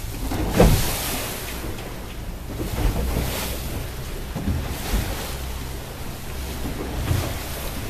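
Waves slapping and splashing on choppy open sea, with wind on the microphone and a steady low rumble underneath; the loudest splash comes about half a second in, with smaller swells of noise every second or two after.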